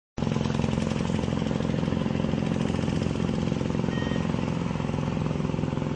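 An engine running steadily with a fast, even throb, and a short faint beep about four seconds in.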